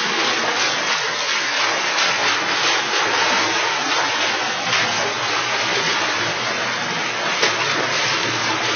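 Steady rushing and splashing of water inside Hezekiah's Tunnel, a narrow rock-cut water channel.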